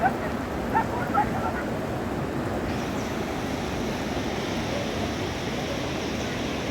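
Heavy rain pouring down steadily as a dense hiss, with a few short sharper sounds in the first second and a half and the hiss turning brighter about three seconds in.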